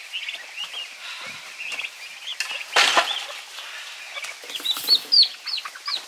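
Young turkeys and hens calling in a run: a steady stream of short, high peeps and chirps, busier near the end. There is a brief rustling burst about halfway through.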